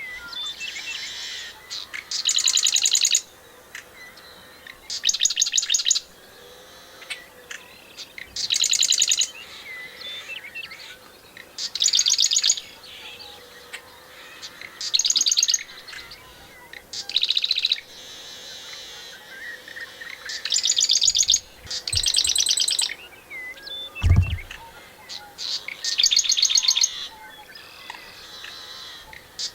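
Marsh wren singing its rapid rattling trill over and over, each song about a second long and a few seconds apart. One low thump comes late on.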